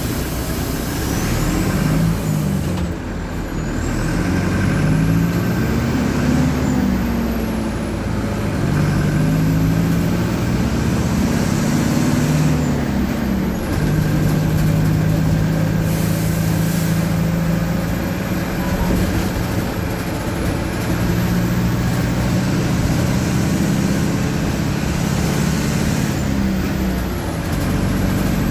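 Mercedes-Benz OF-1722M bus's diesel engine heard from on board, climbing in pitch and dropping back several times as it pulls through the gears, then running steadily. A brief hiss about sixteen seconds in.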